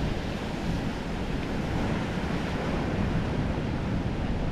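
Ocean surf breaking on a sandy beach, a steady wash of waves, with wind rumbling on the microphone.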